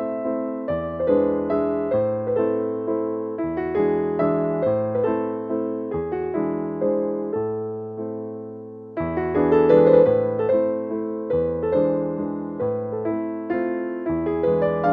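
Background piano music: a gentle melody of struck notes over low bass notes, dipping briefly about nine seconds in before the next phrase comes in.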